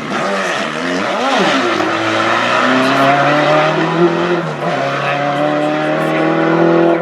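A classic rally car's engine at a hairpin. It blips up and down quickly for the first second and a half, then revs steadily higher under hard acceleration, with a short drop in pitch about two-thirds through at a gear change.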